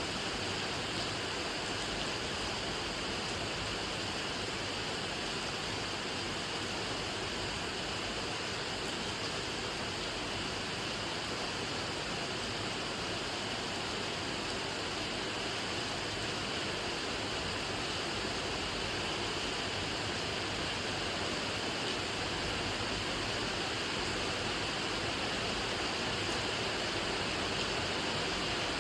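Steady rain falling, an even unbroken hiss with no separate drops or thunder standing out.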